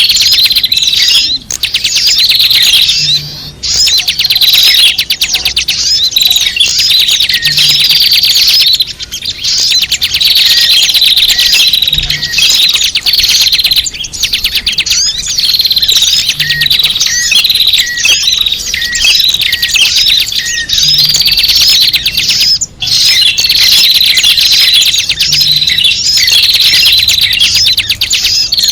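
Loud, dense chorus of small birds chirping and twittering without a break, full of quick high trills: a small-bird lure ('pikat') recording.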